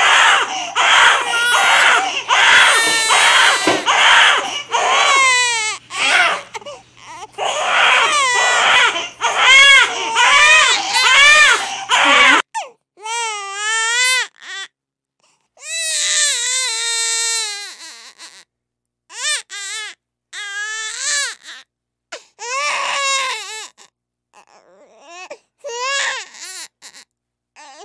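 Babies crying. First a newborn cries in rapid, almost unbroken wails. After a cut about twelve seconds in, an older infant cries in separate, drawn-out wails with short pauses between them.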